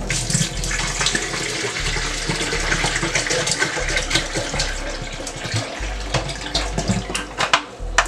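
Water poured from a plastic bottle into a glass measuring pitcher, a steady splashing pour that stops near the end. Two sharp knocks follow just before the end.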